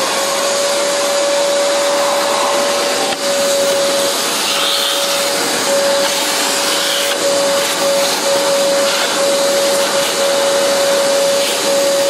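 Shop vac running steadily: a rush of air with a steady high motor whine, its nozzle sucking loose coffee grounds off a grinder's burr assembly.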